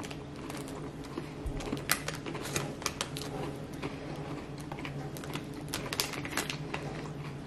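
Close-miked chewing of a chocolate-coated biscuit bar with the mouth closed: a run of small, irregular crunches and clicks as the biscuit pieces are broken down.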